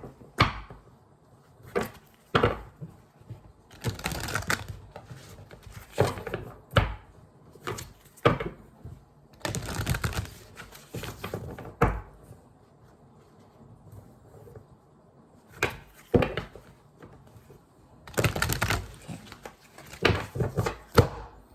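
A deck of oracle cards being shuffled by hand in irregular bursts of rustling and flicking, with a few sharp knocks between them.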